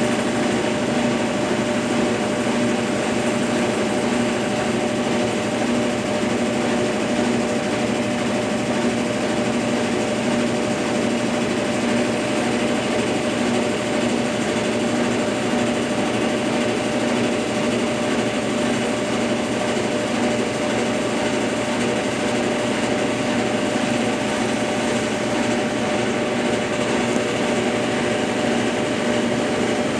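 Consul Facilite 10 kg washing machine running with a steady motor hum and whir, holding an even pitch throughout.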